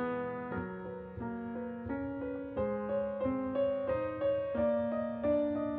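Outro background music: a slow piano melody, one note struck about every half second and left to ring out.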